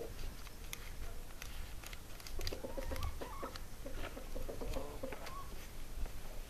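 Paper banknotes being flicked through and counted by hand: a run of short, papery flicks and rustles. About halfway through comes a stretch of faint, choppy calls or chatter.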